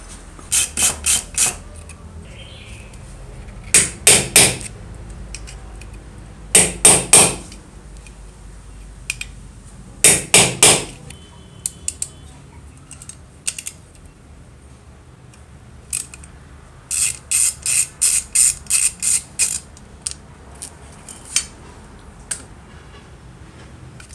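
Hammer blows on a hand impact driver, in quick runs of three or four sharp metal strikes, with a longer run of about ten later on, working loose the rusted screws of an old metal cut-off saw's switch housing.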